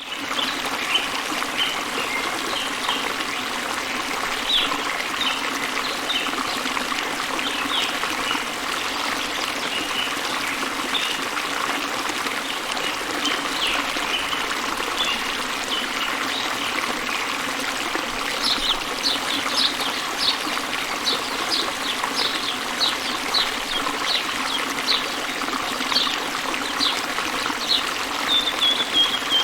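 Water running steadily, with small birds chirping over it: scattered short chirps at first, then a quick, evenly repeated run of chirps from about two-thirds of the way in.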